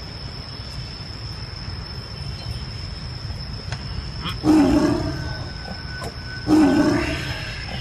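White tiger roaring twice, each a loud snarl of about a second that fades out, about two seconds apart.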